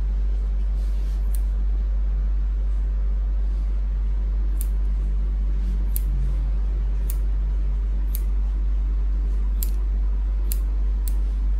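Hair-cutting shears snipping off excess wet hair: about eight short, sharp snips, one early on and then roughly one a second through the second half. Under them runs a steady low hum.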